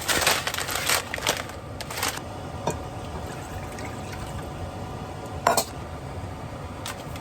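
Liquid pouring and splashing for about the first two seconds, then quieter kitchen handling with one sharp knock about five and a half seconds in.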